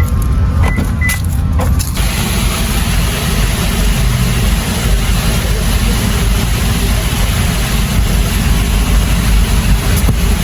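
Steady low rumble of a motor vehicle on the move, with a broad rushing noise that comes up about two seconds in.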